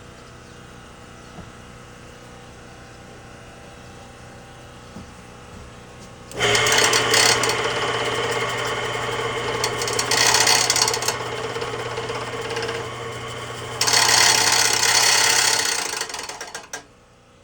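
Older Mastercraft woodworking lathe's electric motor switched on about six seconds in, running for about ten seconds with a loud, uneven rasping rattle before it is switched off. The noise sounds like something loose inside the lathe.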